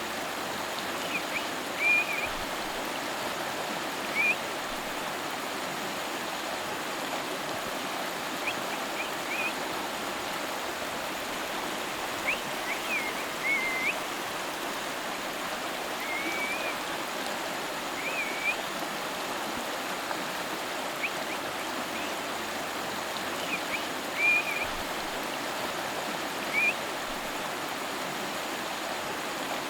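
A river flowing steadily, a constant rushing of water, with short high chirps coming now and then over it.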